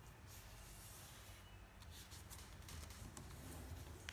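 Near silence: a low steady hum, with faint rustling of a sheet of lined paper being creased and folded by hand.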